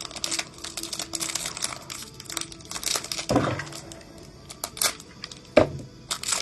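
Trading card pack wrapper being torn open and crinkled by hand, a dense crackling rustle, with two louder knocks about three and five and a half seconds in.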